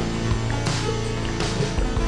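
Background music with sustained bass notes and drum hits.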